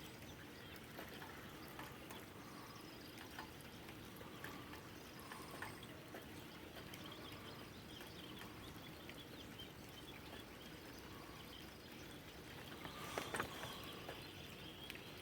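Rainwater trickling steadily from a downspout in a light drizzle, with faint, scattered chirps of neighbourhood songbirds and a few louder short sounds near the end.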